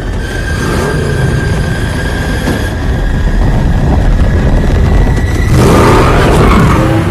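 Batmobile engine running loudly under heavy rumble, with a steady high whine over it; it gets louder about five and a half seconds in, its pitch wavering as it revs.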